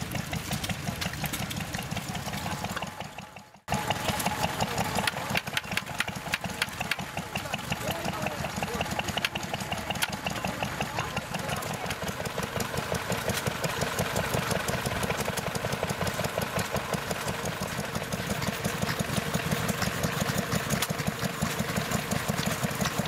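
Small vintage stationary engines running steadily, each firing beat distinct in an even rhythm. The sound fades out about three seconds in and cuts back in a moment later on another engine.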